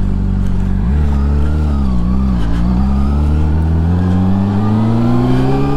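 Honda CBR600RR's inline-four engine under way. The note changes about a second in, wavers, then rises steadily through the second half as the bike accelerates.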